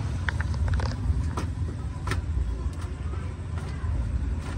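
A steady low rumble, with a few short light taps and slaps as roti dough is stretched and flapped by hand across an oiled steel counter.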